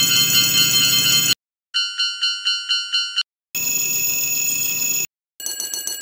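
Railroad crossing warning bells of several different kinds ringing one after another, each for about a second and a half with a short break between them; some ring steadily, others in quick pulses.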